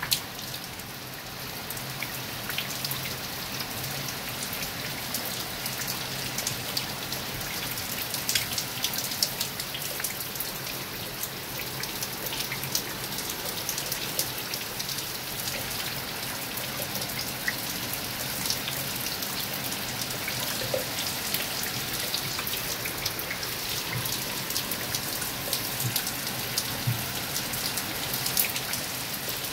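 Heavy rain: a steady hiss of downpour, with many sharp ticks of drops hitting hard surfaces close by.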